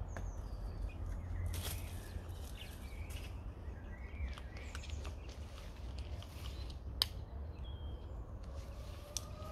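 Outdoor ambience: small birds chirping now and then over a steady low rumble, with one sharp click about seven seconds in.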